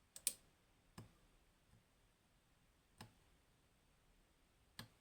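Faint, sharp clicks from picking a Goal Grand V high-pin-count pin tumbler lock: a quick pair about a quarter second in, then single clicks about a second in, at three seconds and near the end, as the pick works the pins and they set.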